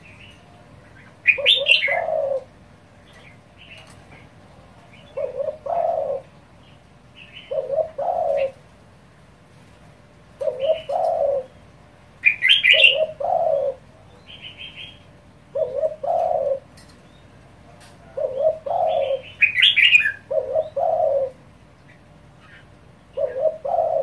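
Caged spotted dove cooing its phrase over and over in quick succession, about nine phrases, one every two to three seconds: the fast, pressing 'thúc dồn' cooing style. Brief higher chirps join three of the phrases.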